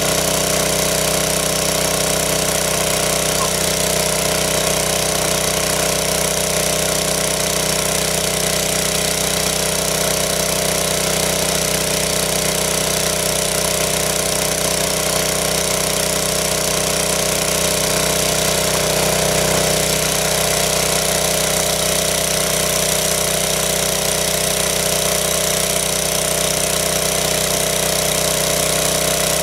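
Small engine-driven water pump running steadily at a constant speed, drawing water out of a pit through its suction hose and discharging it in a jet.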